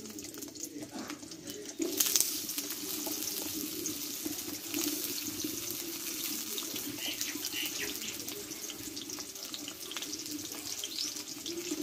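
Potato wedges sizzling and crackling in hot refined vegetable oil in an aluminium kadai. About two seconds in, more wedges go into the oil and the sizzle jumps louder.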